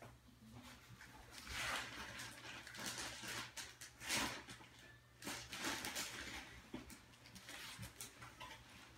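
Faint rustling and hissing in several short bursts over a few seconds, with a few light clicks later on, from a person moving about.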